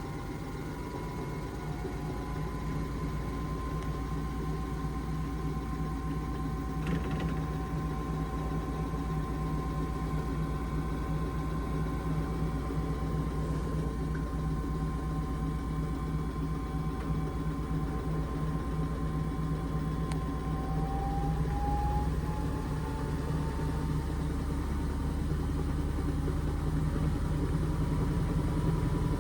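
Indesit IMA862MYTIMEUK washing machine on an intermediate spin of its Mixed programme: the drum rumbles and the motor whines steadily, the sound slowly growing louder, with the whine's pitch edging up about two-thirds of the way through as the spin speed climbs.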